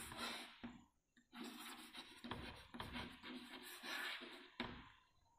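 Chalk writing on a blackboard: a faint run of short scratching strokes as a word is written, stopping near the end.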